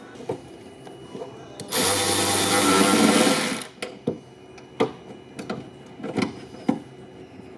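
A small handheld power tool runs in one loud burst of about two seconds, then a series of sharp clicks and knocks.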